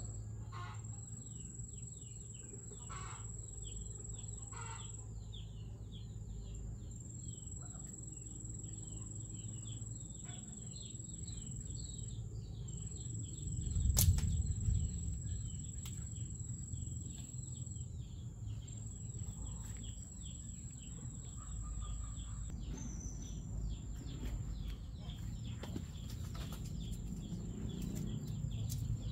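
Rural outdoor ambience: chickens clucking now and then over a steady high whine that breaks off every few seconds, with scattered chirps. One sharp knock with a low thud about halfway through is the loudest moment, and a few lighter clicks come near the end.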